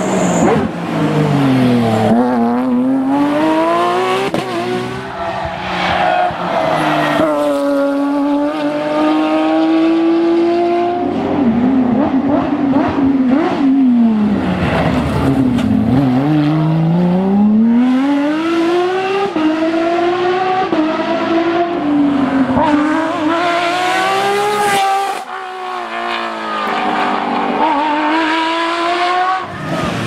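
Porsche 911 GT3 rally cars' flat-six engines at full throttle on a rally stage, one car after another, the engine note climbing through the revs and dropping again and again as the cars shift gear and brake into corners.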